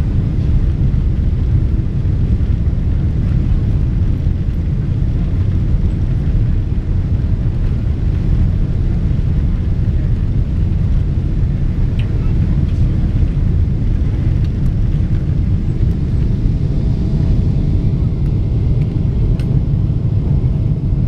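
Cabin noise of a Boeing 777-200 on its takeoff roll: a steady, loud, deep rumble of the engines at takeoff power and the wheels on the runway.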